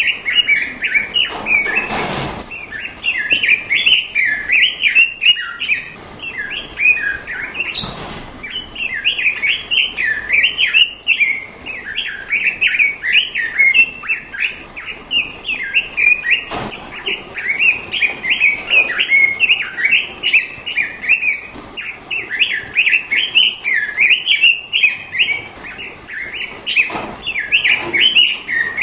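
Straw-headed bulbul (cucak rawa) song, played as a master recording for training cage birds: fast, unbroken chirping and twittering. A few sharp clicks break in now and then.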